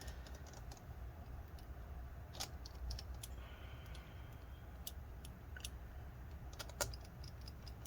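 Scattered small clicks and ticks as screws and a small tool are handled while the laptop's cooling fan is fastened back in place.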